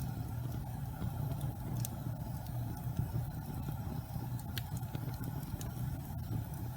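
Wood fire burning: a steady low roar of flames with a few sharp crackles and pops scattered through it.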